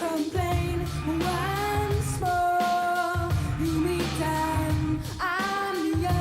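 Background pop music with a singing voice: a sung melody with held notes over a steady low bass line.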